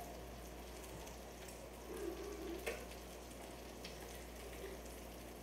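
Pancake cooking in a frying pan with a low, steady sizzle, and a couple of short clicks from the spatula against the pan about three seconds in.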